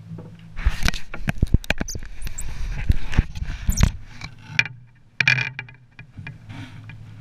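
Close handling noise: a rapid clatter of knocks and scrapes as the camera is grabbed and turned, over a steady low hum. A couple more knocks follow around five seconds in.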